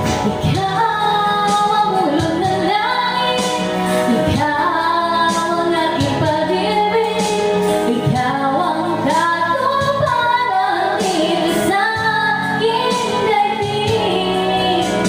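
A woman singing a slow love ballad solo into a handheld microphone, over instrumental accompaniment.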